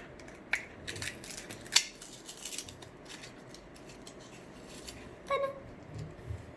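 Small plastic LEGO pieces being handled: a few sharp clicks and light rattling in the first couple of seconds, then quieter handling.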